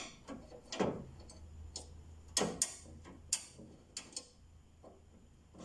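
Irregular metal clicks and light taps as small parts are fitted and lined up at a treadle sewing machine stand's connecting-rod joint: about eight sharp ticks, unevenly spaced.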